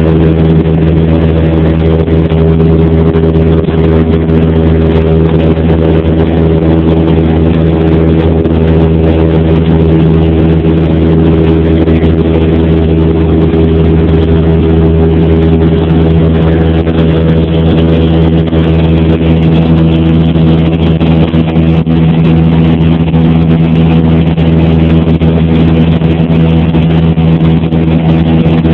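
Cessna 172P's piston engine and propeller running steadily in flight, a loud even drone heard inside the cabin.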